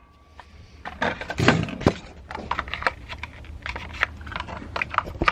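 Irregular plastic clicks, taps and knocks as a toy RC car with clear plastic wheels and its parts are handled and fitted together on a wooden table.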